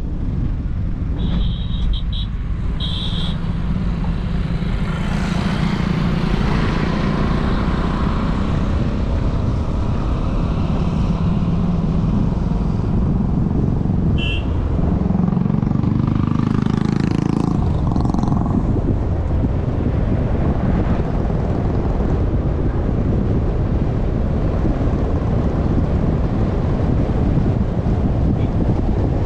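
Steady road noise from a car driving along: tyre rumble and engine hum. A few short high chirps come near the start and about halfway through, and another engine grows louder for a couple of seconds a little past the middle.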